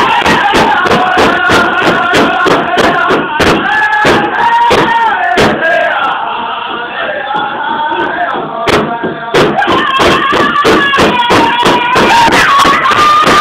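A powwow drum group: several men striking a large shared drum in a steady, fast beat while singing together. For a few seconds in the middle the drumbeat drops out while the singing carries on, then the beat comes back in.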